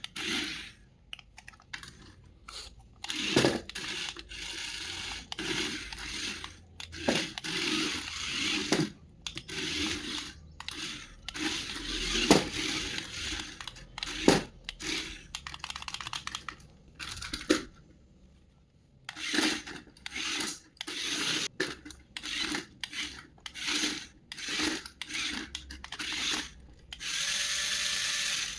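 Toy packaging being handled and opened: irregular rustling and scraping of cardboard and plastic, with sharp knocks, and a short lull a little past halfway.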